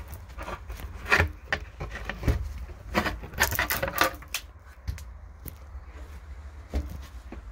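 Carpeted gearbox tunnel cover of a UAZ 469 being wrenched loose and pulled up around the gear and transfer-case levers: a few scattered knocks, with a burst of scraping and rubbing about three seconds in.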